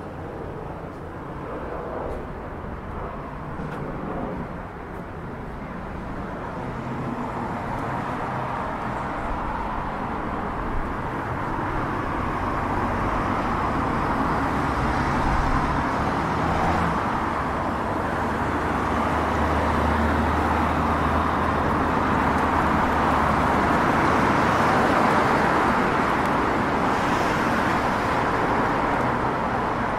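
Road traffic on a city street: motor vehicles driving past, the tyre and engine noise building over the first half and staying loud, with a low engine hum through the second half.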